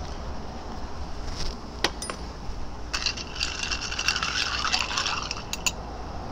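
Ice cubes clinking and rattling against a glass mixing glass as a bar spoon stirs a cocktail, a dense run of clinks lasting about two seconds from about three seconds in. A couple of sharp clicks come before it and a few more as the spoon comes out near the end.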